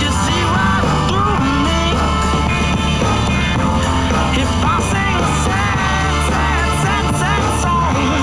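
Rock music with singing or lead melody over distorted guitars, bass and drums.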